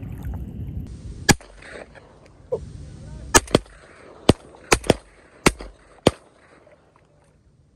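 A string of about eight sharp shotgun shots, some in quick pairs a fraction of a second apart. A low rushing noise is heard in the first second or so.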